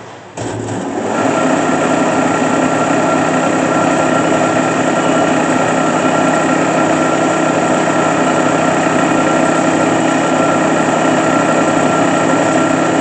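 Timesaver 25-inch wide belt sander's 10-horsepower main drive switched on about half a second in, coming up to speed within a second, then running steadily with the abrasive belt moving: a loud, even machine hum with several held tones.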